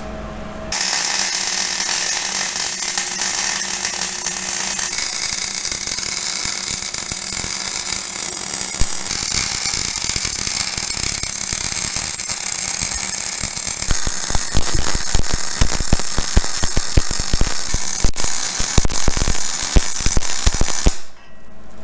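MIG welding arc crackling steadily as a bead is run on a steel axle truss. It starts about a second in, grows sharper and more popping in the second half, and cuts off abruptly near the end when the trigger is released.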